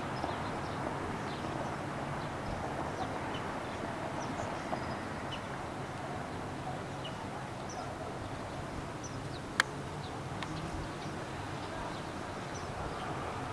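Steady open-air background noise with scattered faint, short bird chirps. A single sharp click stands out about ten seconds in.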